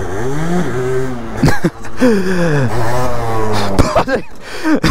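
Moped engine revving, its pitch climbing and then falling away in long sweeps as the throttle is opened and closed, with a few sharp thumps on the microphone.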